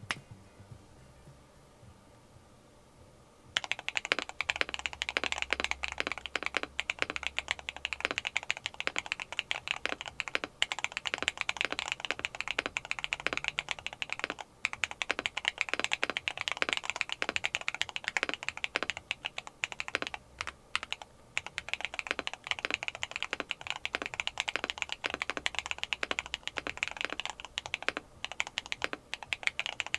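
Fast typing on a Neo 70 mechanical keyboard fitted with KTT Teresa switches, whose long-pole stems give a loud, clacky keystroke. The typing starts about three and a half seconds in, after a quiet start, and continues with only brief pauses.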